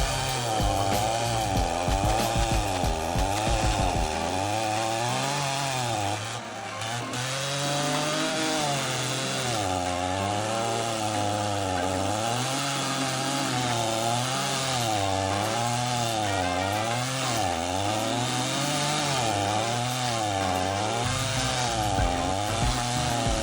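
Stihl two-stroke chainsaw driving a stump-grinding cutter, its engine pitch rising and falling over and over as the cutter bites into the stump and eases off. The engine dips briefly about six seconds in.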